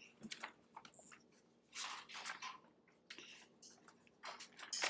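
Faint, brief rustles of paper sheets being handled and turned over, a few scattered crinkles with short gaps between them.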